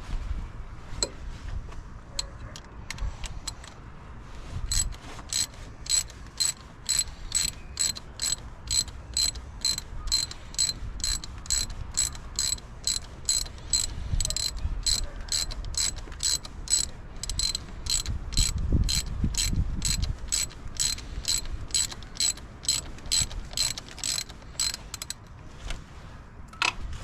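Hand ratchet wrench clicking about twice a second as it is worked back and forth, undoing a water pump bolt.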